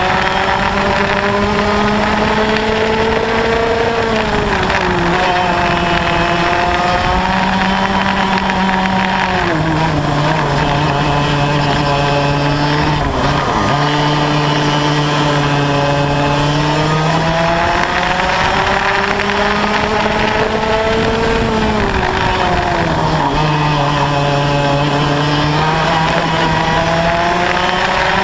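Yamaha KT100 two-stroke kart engine with a Y-pipe exhaust at racing speed: its pitch climbs as it accelerates down each straight and drops sharply into each corner, about five times.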